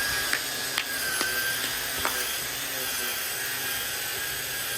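String trimmer running steadily at high speed, a continuous motor whine over the whir of the spinning line, with a few sharp ticks in the first two seconds.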